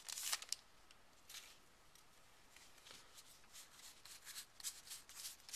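Trading cards from a freshly opened booster pack being flipped through by hand: faint, soft rustles and flicks. There is a brief louder rustle at the start and a run of quick flicks in the last second or so.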